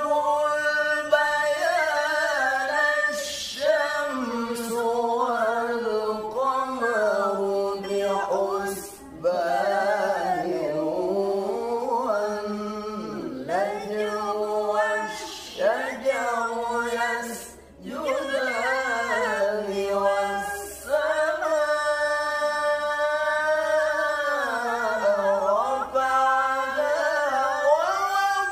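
Melodic Quran recitation (tilawah) in maqam bayati: one unaccompanied voice chanting long, ornamented phrases, with short breaths about nine seconds in and again past the middle.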